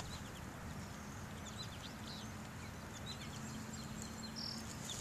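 Faint outdoor ambience: distant birds chirping in scattered clusters of short, falling high notes, over a faint steady low hum.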